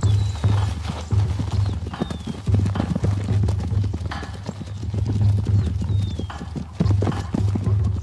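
A herd of plains zebras galloping, with many fast hoofbeats as rival stallions chase one another. A short, high, falling call rings out several times, about every two seconds.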